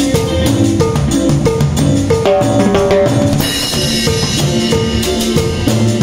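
Band music with drums and percussion played with sticks, over bass and other pitched instruments, in a steady, driving rhythm. A cymbal crash comes about three and a half seconds in.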